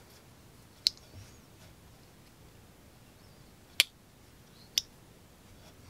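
Three sharp, separate clicks from a Real Steel Luna Titan slip joint folding knife as its blade is worked open and shut. The backspring snaps the blade into its stops.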